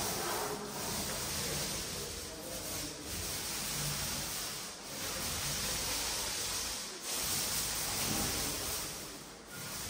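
Emulsion paint being applied to a wall: a steady hissing rub that dips briefly every couple of seconds as the strokes change.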